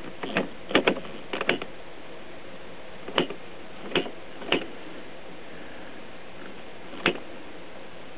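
Light, sharp taps, about eight of them spaced irregularly, on the glass neck of a CRT picture tube to clear a brief G1-to-cathode short, over a steady low hiss.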